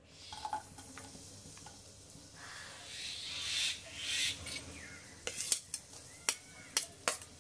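Sliced onions sizzling in hot oil in a wok, the hiss swelling a few seconds in as more slices go in. In the last couple of seconds a metal spoon clinks and taps against a steel plate.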